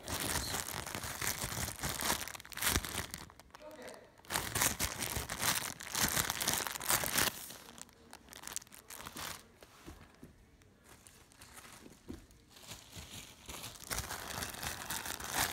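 Clear plastic bag around a squishy toy crinkling in irregular bursts as hands grip and squeeze it through the wrapper. It quietens for a few seconds past the middle and picks up again near the end.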